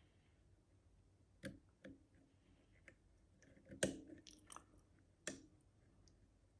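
Faint, scattered small clicks of lever-lock picking tools working the levers inside an Easi-T lever lock, about five in all, the loudest about halfway through.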